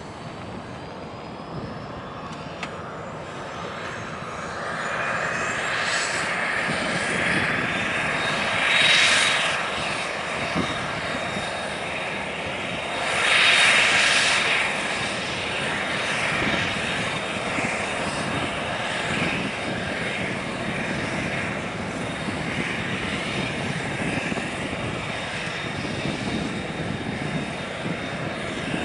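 Dash 8 Q400's Pratt & Whitney PW150A turboprop engines running on the ground. A whine rises in pitch over the first eight seconds or so, then holds a steady high tone. The engine noise swells louder twice, about nine and fourteen seconds in.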